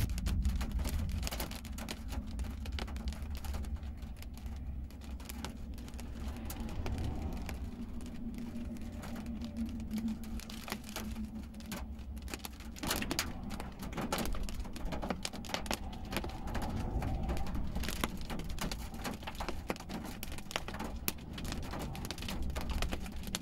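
Raindrops pattering irregularly on a car's roof and windscreen, heard from inside the cabin, over a low steady rumble from the car.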